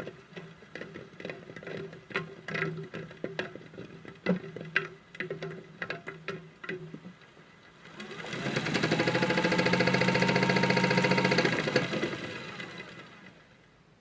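Modified toy washing machine's small electric motor: light clicking and rattling over a low hum. About eight seconds in, it speeds up into a loud whirring spin with a rising whine that lasts about four seconds, then winds down and stops.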